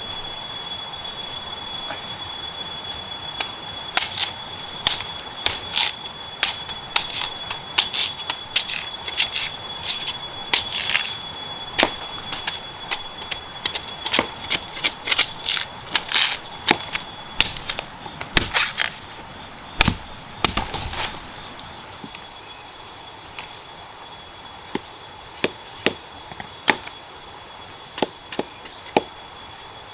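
Machete chopping and paring a fresh bamboo shoot: a quick run of sharp cuts and scrapes that thins out to occasional strokes in the second half. A steady high-pitched whine runs underneath.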